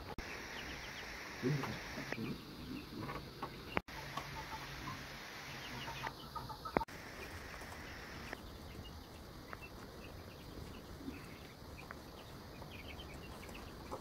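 Chickens clucking now and then, with a couple of sharp clicks along the way.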